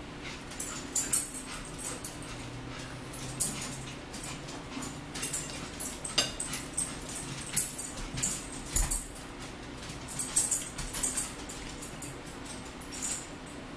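Close-miked chewing and lip-smacking while eating turkey meatballs: an irregular string of short, wet clicks over a low steady hum.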